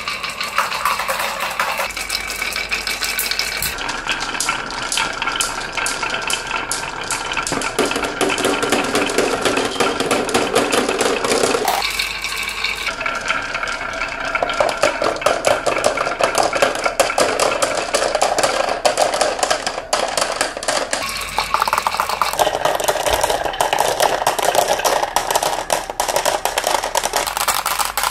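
Many glass marbles rolling down wooden marble-run tracks in a continuous stream, a steady rolling rumble full of dense clicking as they knock against each other and the wood, some dropping into a plastic toy dump truck's bed. The sound changes character abruptly a few times.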